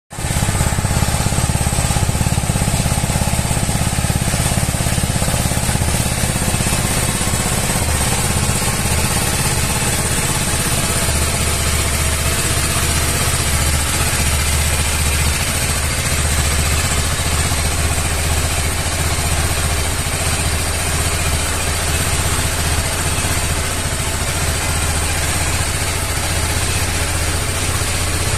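TVS Apache RR 310's single-cylinder engine running steadily through its stock exhaust.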